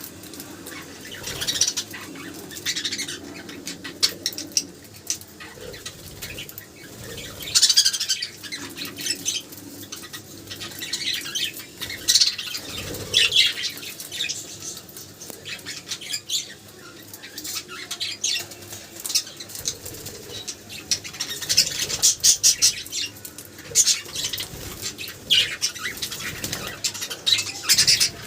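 Budgerigars chirping and chattering in short, repeated bouts, with wing flutters.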